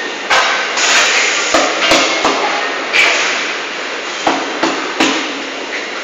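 Solar water heater tank conveyor line: several sharp, irregular knocks as the tank casing is handled on the steel roller conveyor, over steady factory background noise.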